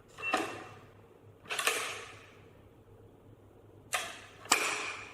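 Four sharp metallic clacks from the smart door lock's mechanism as it is operated, its latches and bolts snapping over. Each clack rings briefly: two come early, and two close together near the end.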